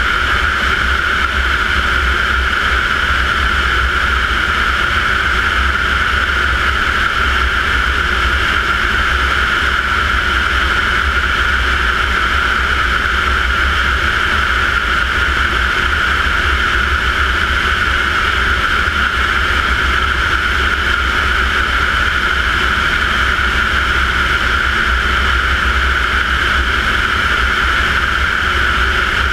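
TP 100 turboprop engine and propeller of an RV-10 running steadily in cruise flight, heard from a wing-mounted camera: a steady high turbine whine over a low rumble of propeller and wind noise.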